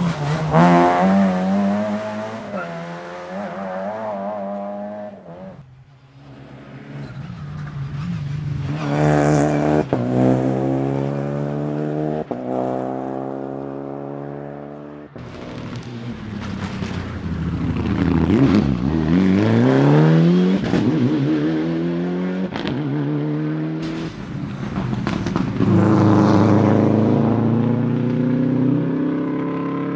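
Rally cars at full throttle, one run after another, engines revving hard with pitch climbing through each gear and dropping at the shifts and lifts for corners. There is a deep dip and a long climb in revs just before the middle of the third run.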